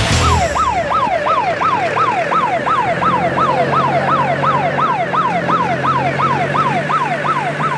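Electronic siren sounding a fast yelp: rapid whoops, about three a second, each one jumping up and gliding down in pitch, over a low steady hum.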